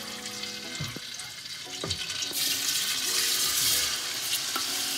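Hot oil sizzling in a pan of frying garlic and ginger paste, growing louder about two seconds in as a liquid is added to the hot pan.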